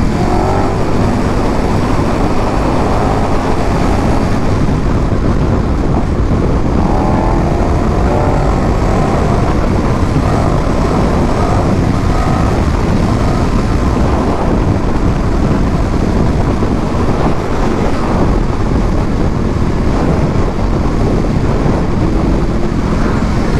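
KTM 1290's V-twin running under a steady, heavy rush of wind over the microphone while riding at speed, its pitch drifting up and down a little as the throttle changes.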